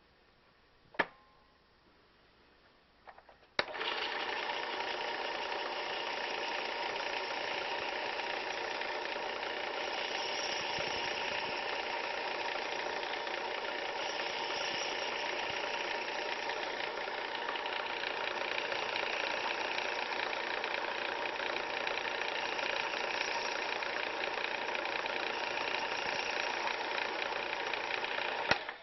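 WorkSharp 3000 electric sharpener with its belt attachment and superfine polishing belt, switched on with a click about three and a half seconds in and running steadily with a whine for about 25 seconds, as a knife is honed on the belt, then switched off just before the end. A single click sounds about a second in.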